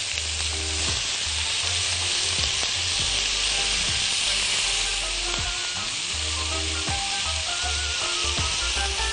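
Julienned onions and beef steak pieces sizzling steadily in a hot frying pan while being spread and turned with silicone tongs; the onions have just gone in to sauté with the browned meat.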